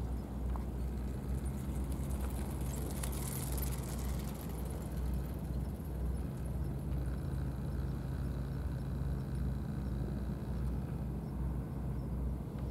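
Steady low outdoor background rumble with no distinct event; a brief high hiss rises and fades about three seconds in.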